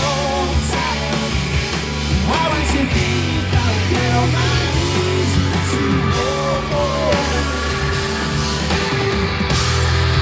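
Live heavy rock band playing between sung lines: sustained bass notes under distorted guitar lines that bend and slide in pitch.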